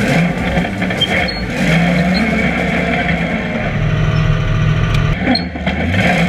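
Rock bouncer race buggy's engine running loudly at the start line, its pitch wavering and shifting a little with the throttle.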